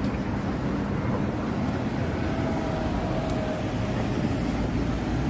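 Steady city street traffic noise: cars and vans running and passing, a continuous low rumble.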